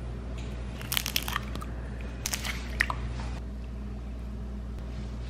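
Eggs cracked and dropped into a stainless steel mixing bowl: two quick clusters of sharp clicks with a wet squish, about a second in and again past two seconds. After that it is quieter, over a steady low hum.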